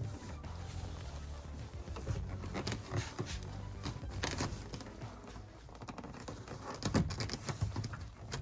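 Irregular clicks, knocks and scrapes of a Pontiac Trans Am's plastic door trim panel being pulled loose from its clips.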